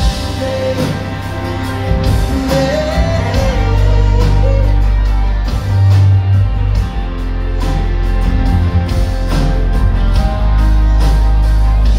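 Live band playing loud on a stage PA: electric and acoustic guitars, drums and heavy bass, with a man singing through the first few seconds.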